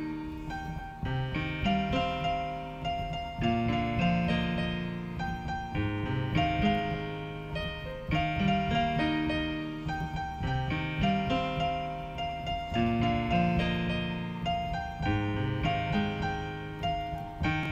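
Piano music: a slow, repeating pattern of chords.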